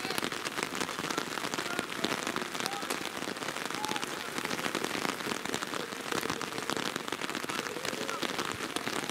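Steady rain, with many sharp individual drop hits close to the microphone.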